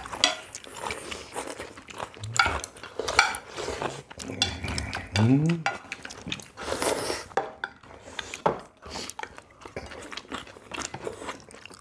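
Spoons and chopsticks clinking and tapping against bowls and plates during a meal, in many short irregular clicks. A brief rising voice sound cuts in about five seconds in.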